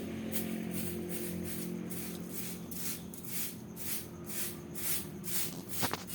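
Cats fighting: a run of short, sharp hisses, about two to three a second.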